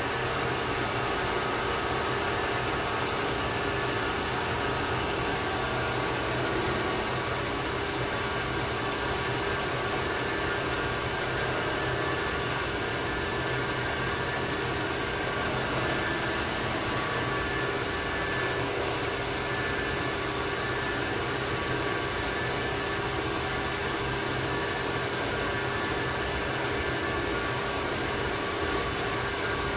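Bridgeport vertical milling machine running, its spindle motor fed by a variable frequency drive: a steady machine hum with several constant whining tones over a noisy hiss.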